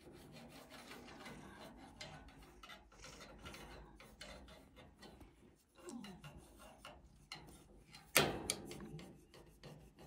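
A long stick scratching and rubbing through a cat's fur in many short, rasping strokes, with one sharp knock about eight seconds in.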